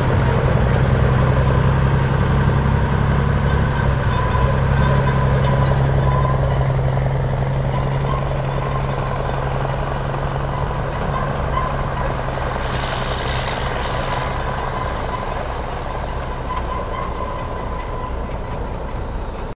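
1974 Mack DM600's six-cylinder turbo diesel engine running as the truck drives away, a steady low drone that fades over the last several seconds.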